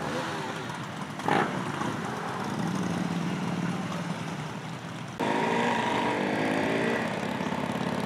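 Motorcycle engines idling among a group of riders, with Harley-Davidson cruisers around, and a short sharp sound about a second in. About five seconds in the sound cuts abruptly to a motorcycle's engine running on the move, its pitch shifting as it pulls along the road.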